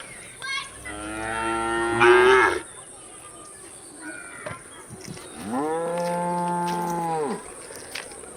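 Cows mooing: two long moos, the first swelling louder and breaking higher near its end, the second held at a steady pitch for about two seconds. Two brief faint calls come between them.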